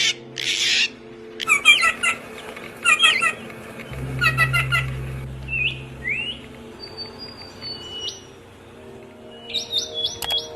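Songbirds chirping and whistling: a short chirped phrase repeated three times, then rising whistles and high thin notes, then a quick run of chirps near the end. A low steady hum lies underneath throughout.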